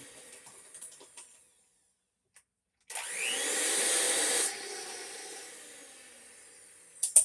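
Hand-held electric mixer creaming butter and sugar, switched on about three seconds in with a rising whine. It runs at full speed for a second or so, then is switched off and spins down, fading away. A few sharp clicks come near the end.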